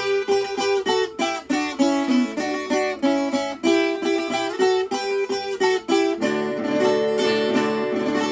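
Viola campaniça, the ten-string Alentejo folk guitar, playing an instrumental interlude between verses: a quick run of plucked notes that turns, about six seconds in, into fuller, continuously ringing chords.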